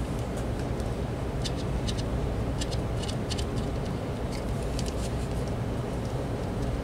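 Light clicks and scratches of hands handling a plastic cordless phone handset while cleaning its charging contacts, scattered irregularly over a steady low hum.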